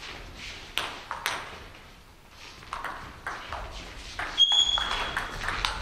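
Table tennis ball being hit back and forth in a doubles rally: a series of sharp clicks of the ball off the rackets and the table. A short high squeak about four and a half seconds in.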